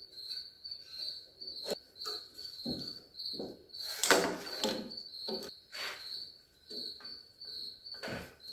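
Crickets chirping in a steady pulse, about three chirps a second, with scattered clicks and knocks of steering-column parts being handled, the loudest about four seconds in.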